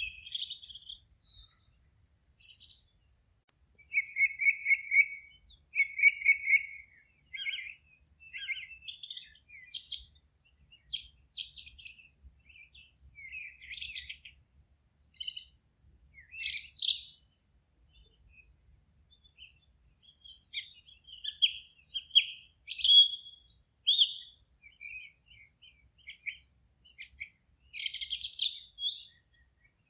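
Several wild forest songbirds singing and calling in short, varied phrases with brief pauses between them, some trilled and some sharp and high.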